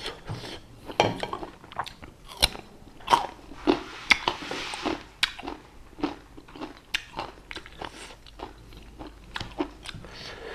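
Close-up eating of fresh fruit: irregular crisp bites and crunching chews, one after another.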